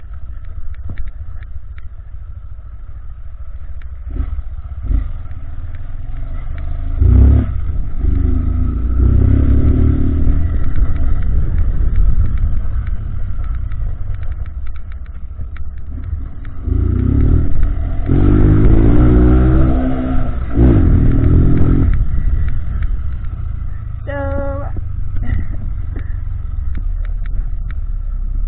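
Honda CG 160 Titan motorcycle's single-cylinder engine with an aftermarket exhaust, ridden and revved hard through the gears, rising in pitch on several pulls, the longest near the middle. A short horn-like beep sounds late on.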